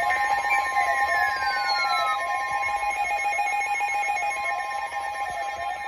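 Emergency alert tones: a steady high tone held together with a lower tone that warbles up and down about once a second, with a slow falling sweep over the first two seconds.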